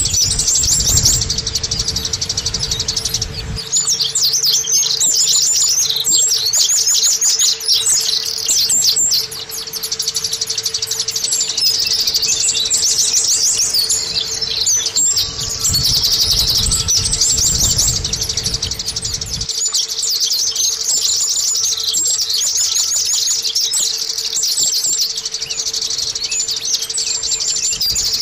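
A white-eye (pleci) singing a long run of rapid, high twittering trills, almost without pause. A steady low hum runs under it, and a low rumble is heard for the first few seconds and again for about four seconds after the middle.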